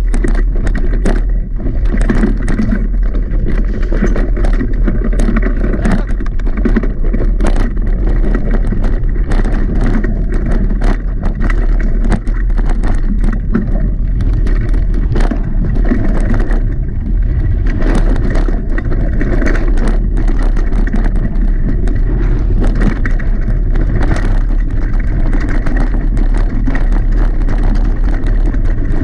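Mountain bike descending a rough, rooty dirt trail at speed, heard from a GoPro on the bike or rider: a steady loud low rumble of the tyres on dirt and air rushing past. Through it runs a rapid stream of sharp clattering knocks as the bike rattles over roots and bumps.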